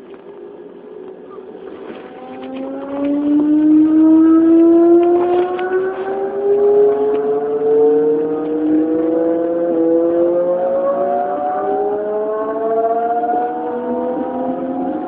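Traction inverter and motors of an Odakyu 1000 series EMU with Mitsubishi GTO-VVVF control, heard from aboard the car. About two seconds in, the train begins to accelerate: a whine of several tones climbs in pitch in steps and grows loud, then carries on rising more gradually.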